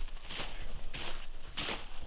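Footsteps crunching in snow: a steady walking pace, three steps about two-thirds of a second apart.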